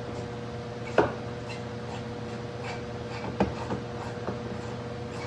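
Quarter-inch hand ratchet with a Torx bit snugging a screw into a plastic panel: scattered clicks and knocks, the sharpest about a second in and another a little past the middle, over a steady hum.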